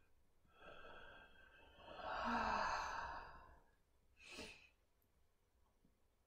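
A woman's deep, audible sigh: a long breath out through the open mouth that swells for a couple of seconds and fades. A brief, shorter breath sound follows about four seconds in.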